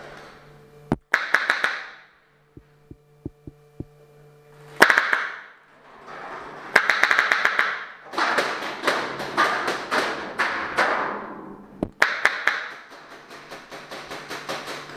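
Paintball fire heard from inside a steel shipping-container bunker: repeated bursts of rapid shots and paintball impacts, each string a second or more long, with a short lull of a few single pops about three seconds in.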